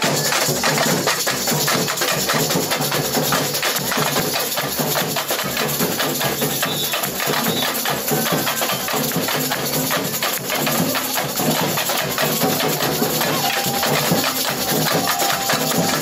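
Samba bateria playing live: a dense, steady batucada of drums and small tamborim-style hand drums struck with sticks.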